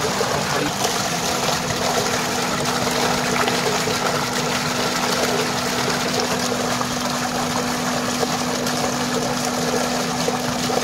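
Water gushing steadily from an irrigation pipe outlet into a concrete tank. Small splashes come from bowls being rinsed and emptied in the stream, and a steady hum runs underneath.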